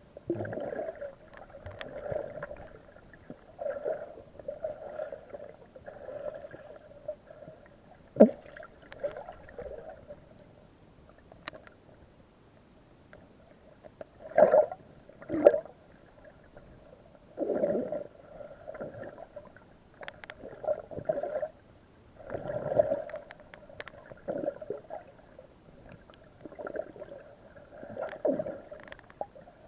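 Muffled gurgling and breathing sounds recorded underwater, coming in irregular bursts every second or two, with a few sharp clicks.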